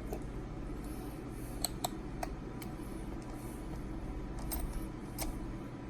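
A few scattered light metallic clicks and taps, small hand tools and screws being handled while working on an RC car, over a steady low hum.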